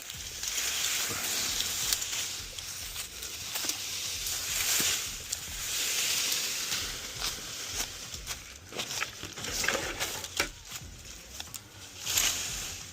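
Rustling and crackling of leafy brush being handled, in swells of a second or two, with scattered sharp snaps and clicks.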